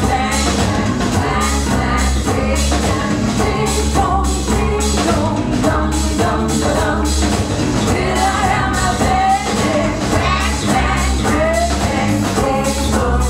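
A song with singing over a steady, pulsing bass beat, with no break.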